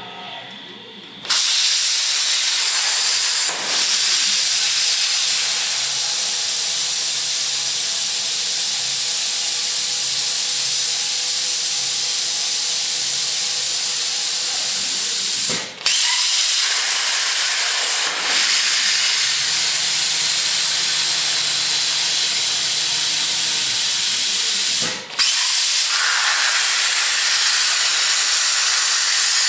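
CNC plasma cutter's torch striking its arc about a second in, then cutting with a loud, steady hiss of arc and compressed air that dips briefly a few times. Before the arc strikes, a quieter hum of steady tones can be heard.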